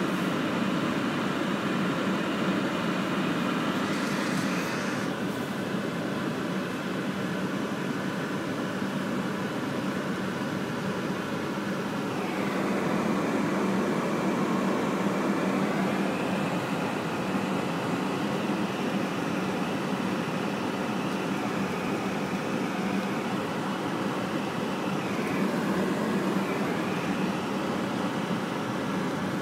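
Steady car engine and tyre noise heard from inside the cabin while driving on a snow-covered road, with a low hum throughout.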